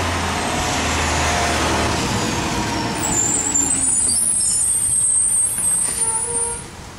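A motor vehicle running, its pitch falling over the first couple of seconds, with a high squeal in the second half; the sound drops away near the end.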